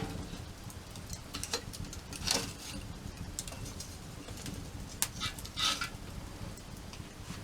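Wood fire crackling, with scattered sharp pops and two louder crackling bursts, about two seconds in and again near six seconds, over a steady low rumble.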